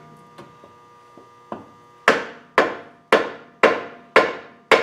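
Hammer blows on metal: a few faint taps, then about two seconds in six sharp strikes at about two a second, each ringing briefly. It is the new pinion seal being tapped into the differential housing to get it started.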